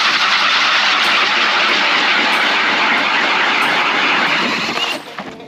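Power ice auger with a green spiral bit drilling through lake ice: a steady grinding of the motor and blades cutting ice, stopping about five seconds in.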